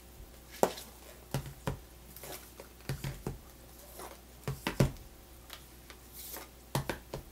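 Eyeshadow palettes being set down and stacked on one another on a cloth-covered table: a dozen or so light taps and clacks in small clusters.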